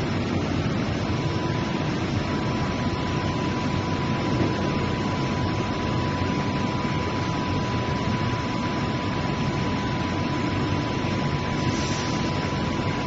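An automatic acid-dumping machine for car batteries running: a steady mechanical hum and hiss, with a thin steady high whine that sets in about a second in.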